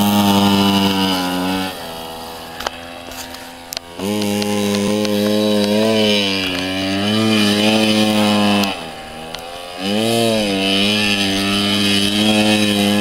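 Small youth dirt bike engine revving hard under throttle, its pitch wavering as the rider works the throttle through turns in the sand. It drops back twice, about two seconds in and again near nine seconds, then revs up again.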